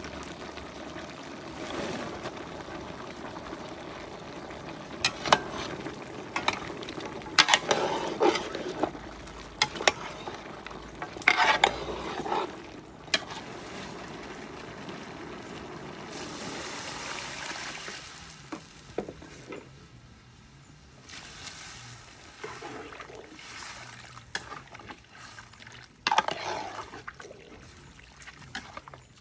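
Pot cooking sounds: liquid sloshing and being stirred, with bursts of utensil clatter a few seconds in and again near the end, and a short hiss midway.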